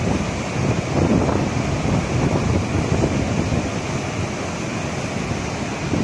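Penna River in flood from a dam release, a large mass of water rushing steadily, with wind buffeting the microphone in irregular gusts.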